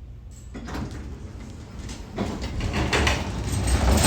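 Montgomery elevator's doors sliding open as the car arrives, a rumbling, rattling door mechanism that starts about half a second in and grows louder toward the end.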